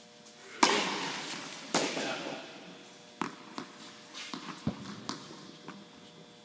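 Tennis ball struck hard by a racket on a serve, ringing with a long echo around an indoor court hall, followed about a second later by a second ball strike. Then a run of lighter, sharp taps of a tennis ball bouncing on the hard court.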